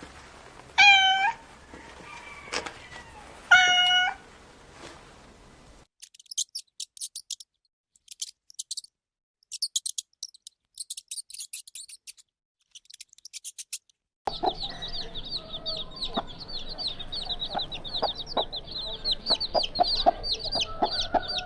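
A kitten meows twice, short high-pitched calls a few seconds apart. After a stretch of sharp, thin high clicks, a dense chorus of rapid high chirps sets in, with lower clucking under it.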